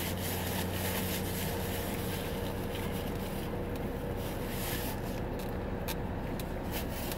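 Steady low hum of an idling car heard from inside the cabin, with a few brief rustles of a paper napkin about five to six seconds in.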